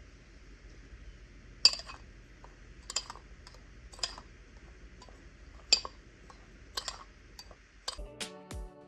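Light clinks and taps of measuring spoons and spice containers against a mixing bowl, about six separate sharp knocks a second or so apart. Background music with a beat comes in near the end.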